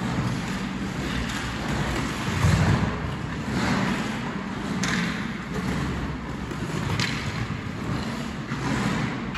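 Hockey skate blades carving and scraping on ice as a player skates tight turns, with a few sharp clicks of a hockey stick on a puck and a low thump about two and a half seconds in.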